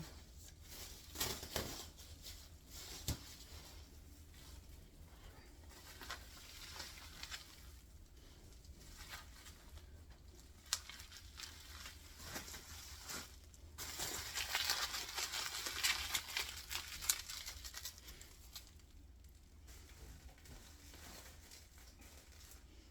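Wrapping material crinkling and rustling as kitchen items are wrapped and packed into a moving box, with a few sharp clicks and a busier, louder stretch of crinkling about two-thirds of the way through.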